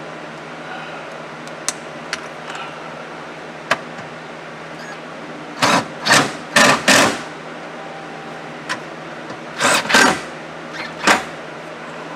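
Handling noises from work under a car dashboard: a few sharp clicks, then short scraping and rustling bursts, four in quick succession about halfway through and three more near the end, as tools and plastic trim are handled. A steady low hum runs underneath.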